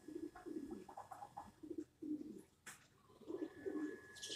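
A dove cooing in a run of soft, repeated low phrases, with a brief higher bird chirp near the end and a single click a little past halfway.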